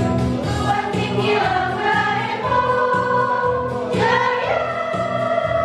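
Women's choir singing long held notes in several parts over an accompaniment with a steady beat.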